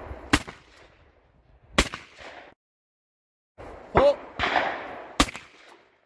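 Break-action shotgun shots at clay targets: two sharp reports about a second and a half apart, a short silence, then two more about a second apart.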